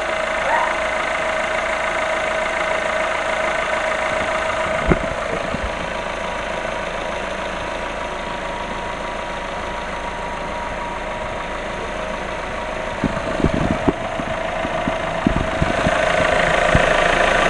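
VW Golf VI 1.4 TSI (CAXA) four-cylinder turbo petrol engine idling steadily and smoothly, with a steady whine over the engine note. A sharp knock about five seconds in and a few more knocks a little before the end, where the engine sound grows louder.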